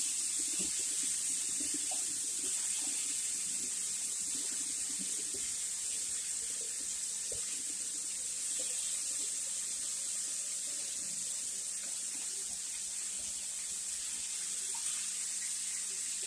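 Chicken bacon sizzling in a frying pan: a steady hiss with occasional small pops of spitting fat.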